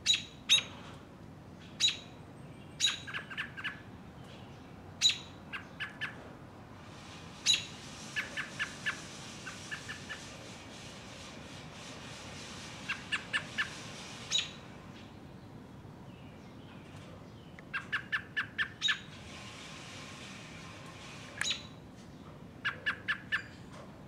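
American robin calling: loud, sharp single notes alternating with quick runs of three to five lower, clipped notes, repeated throughout. This is the robin's pattern of call when disturbed near its nest. A soft hiss comes and goes behind the calls.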